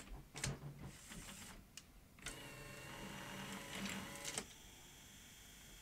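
Grundig 2x4 Super V2000 video recorder's tape mechanism running: a few faint clicks in the first second or so, then a small motor whirs with a thin whine for about two seconds and stops.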